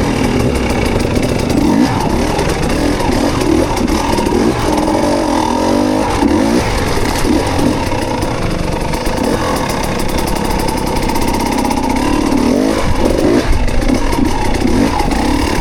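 Dirt bike engine running at low speed, its revs rising and falling again and again as the bike is worked over rough trail.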